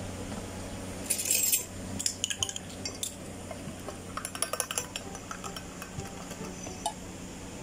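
Drink-making clatter: a short rush of noise about a second in, then a run of light clinks of a metal spoon against cups and glassware, thickest about four to five seconds in, over a steady low hum.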